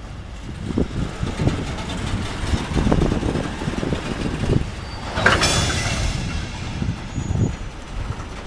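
Train running past with an uneven low rumble, and a short loud hiss about five seconds in.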